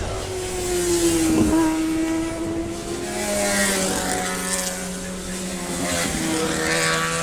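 Racing motorcycles running hard on a street circuit, their engine notes rising and falling in pitch as they change gear and go by, with a marked dip in pitch about a second and a half in and another shift around six seconds in.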